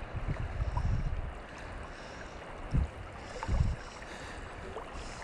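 Creek water rushing and lapping close to the microphone, with a few short low rumbles: one through the first second, a brief one near three seconds and another half a second later.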